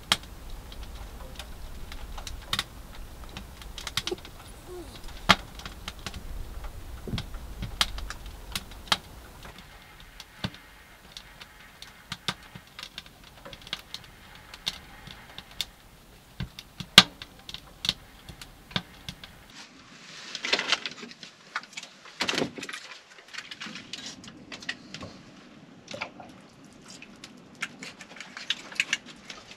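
Wood fire crackling in a small titanium camping stove, irregular sharp pops and snaps. In the last ten seconds louder clatter and handling noises take over.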